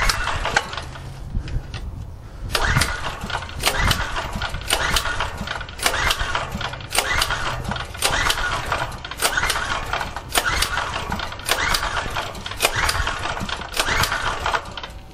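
Small portable gasoline generator being pull-started with the choke on: the recoil starter is yanked about once a second, a dozen or so times, and the engine turns over with each pull without catching.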